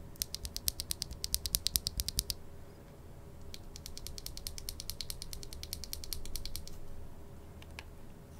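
Lubed linear key switches (Kailh Pro Burgundy stems in Gazzew Bobagum housings) pressed rapidly by hand out of the board: a fast run of sharp plastic clicks, about ten a second, for about two seconds. After a short pause a second, quieter run of clicks follows.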